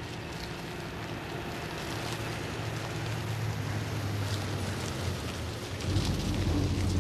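A vintage 1920s open touring car's engine running as it drives along a dirt road, a steady low hum that slowly grows louder. About six seconds in it turns louder and deeper, as if heard from on board.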